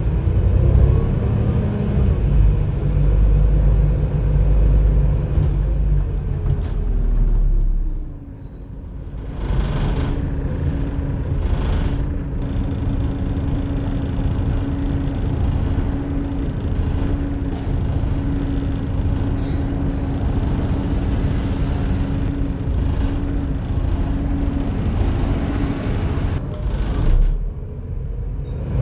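Volvo B7TL double-decker bus heard from the upper deck: the diesel's note falls as the bus slows, dips briefly about eight seconds in, then a steady whine from the engine's cooling fan holds over the low engine rumble for most of the rest.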